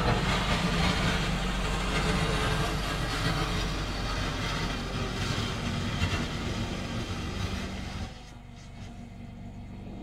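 Homemade compact wheel loader's engine running steadily while it drives and pushes snow with its bucket, with a broad hiss over the engine note. The sound drops sharply about eight seconds in as the machine moves away.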